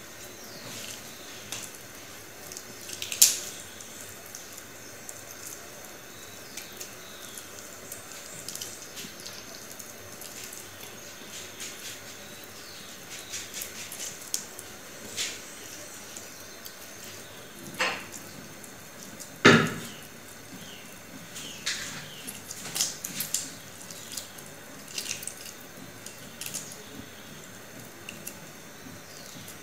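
Cooked chicken being pulled apart by hand over a plate: faint wet tearing and squishing with scattered small clicks and taps. There is a sharper click about three seconds in and a louder knock near twenty seconds.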